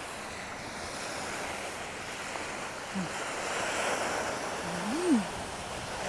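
Surf washing on the shore with wind on the microphone, a steady rush that swells a little about four seconds in. A woman makes two brief wordless vocal sounds, at about three and five seconds in, the second the loudest moment.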